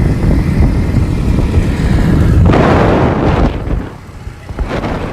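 Wind buffeting the microphone: a heavy, steady low rumble, with louder gusts about halfway through and again near the end.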